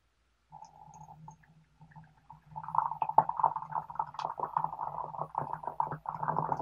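Water poured in a thin stream into a Hario glass teapot, splashing and gurgling as it fills. It starts as a short trickle, then runs as a fuller, louder pour from about two and a half seconds in.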